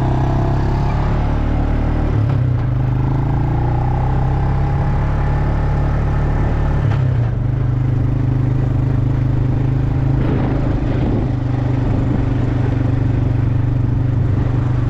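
Tractor engine running steadily, with a few clattering knocks about ten seconds in.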